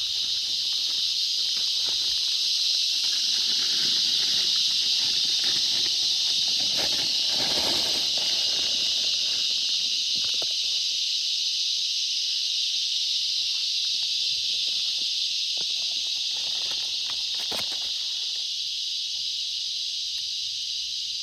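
Steady high-pitched insect chorus droning without a break. Softer rustling and handling noises come in the first half, and a single sharp click comes near the end.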